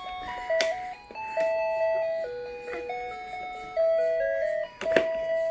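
Electronic toy melody: a simple beeping tune of single notes stepping up and down, with a couple of sharp knocks, about half a second in and near the end.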